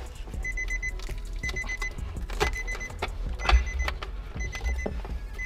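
Nissan 350Z's warning chime beeping with the door open, repeating about once a second, each time a quick run of three or four high pips. A few knocks from handling the interior trim and a low rumble sound under it.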